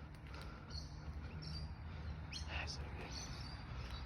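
Birds chirping faintly in short, scattered calls over a steady low rumble of road traffic.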